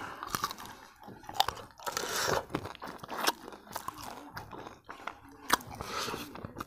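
A person chewing and biting a mouthful of duck biryani close to the microphone, with irregular crunches and wet mouth clicks.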